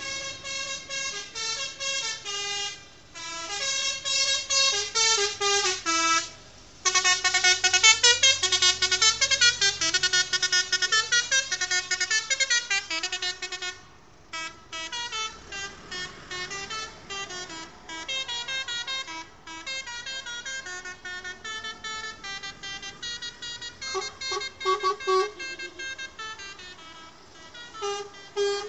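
Musical vehicle horn on a passing decorated vehicle playing a quick tune of short, rapidly repeated notes that step up and down in pitch. It is loudest from about seven to fourteen seconds in, over the low rumble of passing engines.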